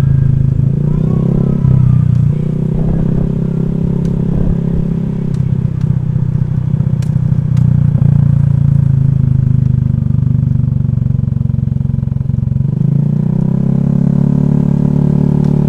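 Honda Vario scooter's single-cylinder engine running steadily under way, its note shifting slightly a couple of times, with a few light ticks.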